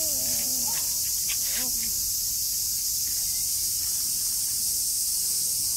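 Cicadas droning in a steady, high-pitched hiss. A young child's voice trails off briefly near the start.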